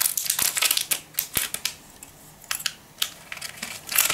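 Plastic snack-cake wrapper crinkling and crackling as it is handled and pulled open, in short bursts: busy in the first second or so, a few scattered crackles in the middle, and busier again near the end.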